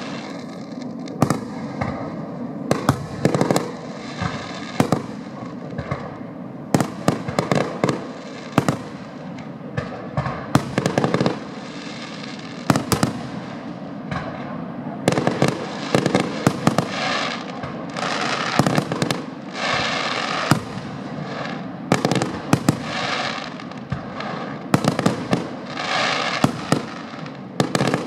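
Aerial firework shells bursting one after another in an irregular, rapid series of sharp bangs.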